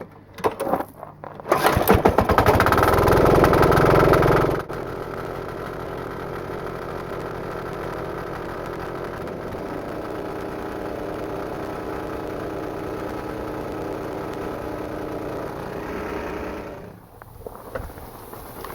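Home-built diesel air compressor starting up: the engine catches and runs loud for about three seconds, then settles into steady running, and shuts off near the end.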